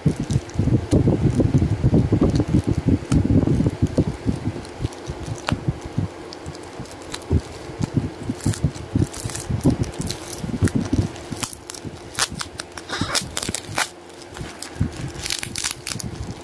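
Bubble-wrap packaging handled close to the microphone. For the first few seconds fingers bump and rub against it; in the second half the plastic crinkles and crackles in quick irregular bursts.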